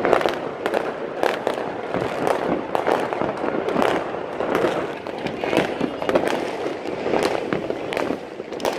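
Many fireworks and firecrackers going off at once: a dense, irregular barrage of pops and bangs overlapping with no pause.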